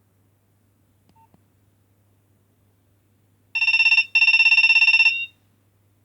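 Nokia 2610 mobile phone playing a telephone-bell-style ringtone through its small speaker: a buzzy, rapidly pulsing electronic trill in two bursts, a short one and then a longer one, starting about three and a half seconds in. A faint short beep sounds about a second in.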